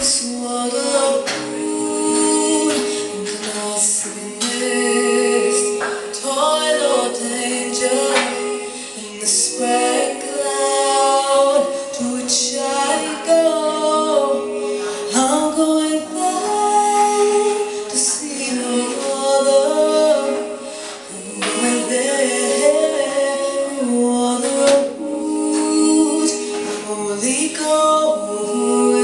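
A song performed live: a woman singing, holding long notes, over instrumental accompaniment with steady percussive strokes.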